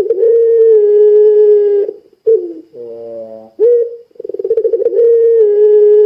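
Puter pelung dove calling: a long held coo ends about two seconds in. A second call follows after a brief falling note. It runs as a short note, an upward swoop, a quick stuttering trill, then another long steady coo that is still going at the end.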